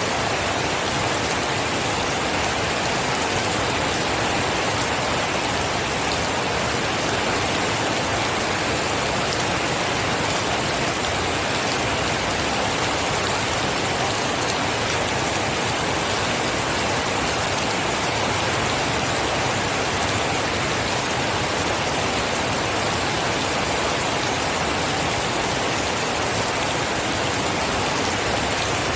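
Steady rain falling, an even hiss of rain with fine patter of drops, unchanging in level throughout.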